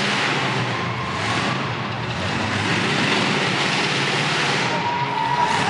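Square-body SUV's engine running under throttle as it drives a dirt obstacle course, heard as a loud, steady din that echoes in an indoor arena. A thin, high whine joins near the end.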